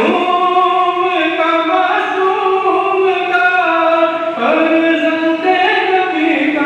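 A noha, a Shia mourning lament, being chanted in long held notes that step up and down in pitch.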